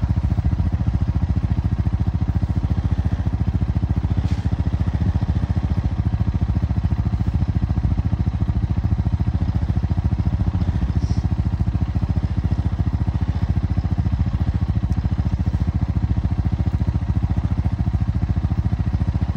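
ATV engine idling steadily, an even, fast low pulsing.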